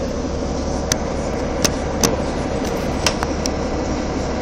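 Cabin noise of a moving Nova Bus LFS articulated city bus: a steady low drone of engine and road noise, broken by a handful of sharp clicks between about one and three seconds in.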